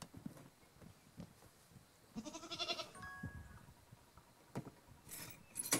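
A farm animal bleats once, a wavering call just under a second long, about two seconds in. Near the end come a few sharp clicks as the wire door of a plastic dog crate is handled.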